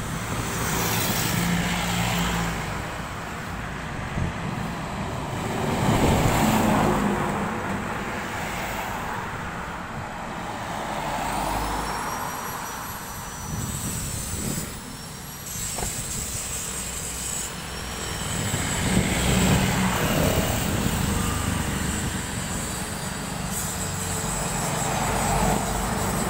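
Highway traffic passing close by: cars, trucks and motorcycles go past one after another, each engine and tyre noise swelling and fading. A few thin, high gliding whistles sound in the middle.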